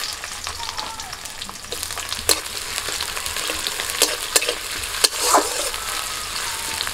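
Chopped onion, garlic and chillies sizzling in hot mustard oil in a metal kadai, stirred with a metal spatula that clicks sharply against the pan several times.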